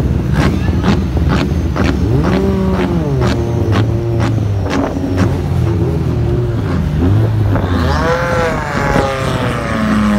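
Several BTCC touring cars' 2.0-litre turbocharged four-cylinder engines revving and running together as the cars pull away from the grid, their pitches rising and falling. Through the first half there is a run of sharp cracks, and near the end one engine revs higher and falls away.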